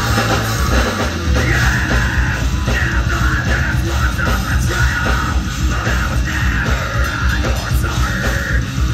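Live heavy metal band playing loud through a PA: electric guitars, bass guitar and drums, with a singer's vocals over them.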